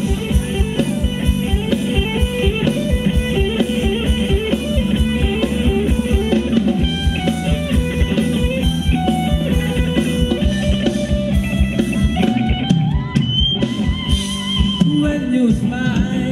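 Live Thai ramwong dance band playing an instrumental passage: a guitar melody over a steady drum-kit beat.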